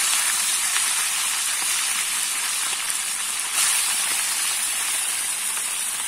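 Small lambari fish deep-frying in a pan of hot oil, a steady sizzling hiss that steps up in loudness about three and a half seconds in.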